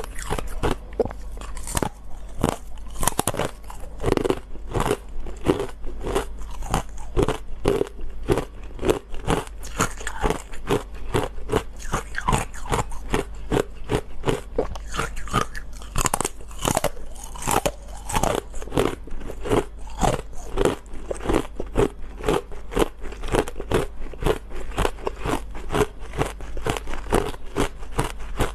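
Ice being bitten and chewed: a steady run of sharp, close crunches from a matcha-powder-coated ice bar breaking between the teeth.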